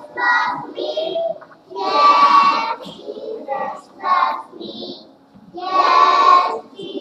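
A group of young children singing together in unison, in short phrases with brief pauses between them.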